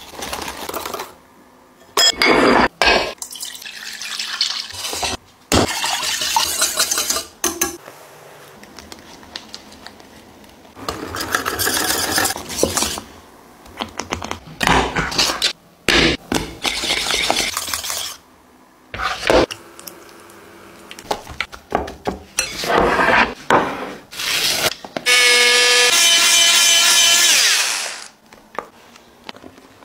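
A wire whisk beating and scraping in a glass mixing bowl and in a steel saucepan in a series of separate bursts, as egg yolks, sugar and cornstarch are mixed and the thickened custard is stirred and whipped. The metal whisk clatters and rasps against glass and steel, ringing near the end.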